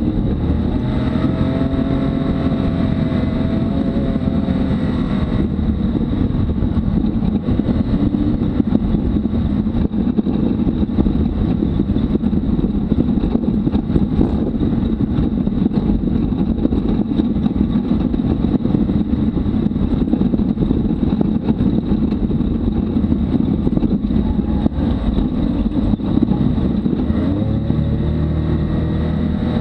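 Can-Am Maverick X3's turbocharged three-cylinder engine running at trail speed under changing throttle, with steady tyre and drivetrain rumble on the dirt track. The engine note wavers in the first few seconds and rises again near the end as the machine speeds up.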